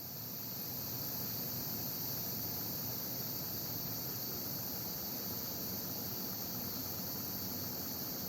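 Steady high-pitched chorus of singing insects, an unbroken shrill drone that fades in at the start and holds level.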